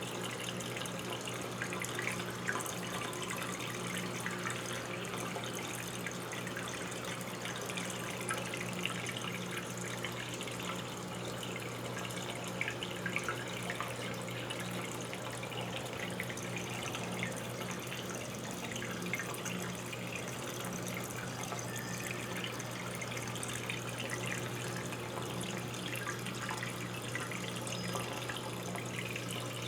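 Brastemp 14 kg washing machine running with water pouring and splashing inside it, steady throughout, over a low steady hum.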